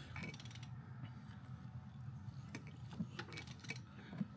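Faint, irregular metallic clicks and ticks as a BMW N57 diesel engine is slowly rolled over by hand, the new timing chain feeding over the sprockets as the old one is pulled out.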